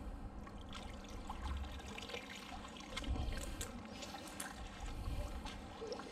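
Water trickling and dripping, with scattered small clicks and knocks.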